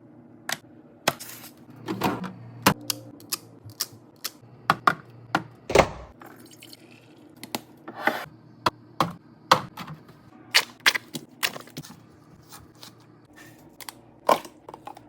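Containers and food items being set down and arranged in a fridge: irregular sharp clicks and knocks, over a steady low hum.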